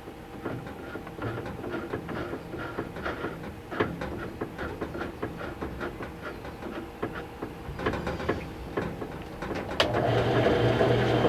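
Benchtop mill/drill: light, irregular clicking and tapping of tooling being handled, then a sharp click near the end as the spindle motor starts and runs with a steady hum, the end mill holder spinning true.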